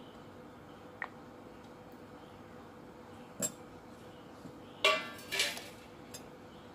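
Steel spoon clinking against a stainless steel mixer-grinder jar as coconut oil is spooned in. There is a light tick about a second in and a knock a little past three seconds, then two louder ringing clinks close together about five seconds in.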